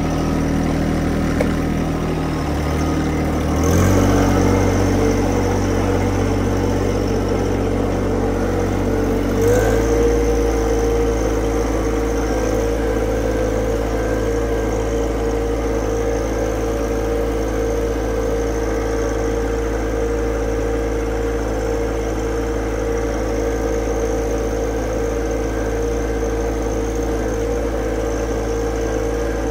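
Tractor engine running, throttled up in two steps, a few seconds in and again about ten seconds in, then holding a steady, higher working speed.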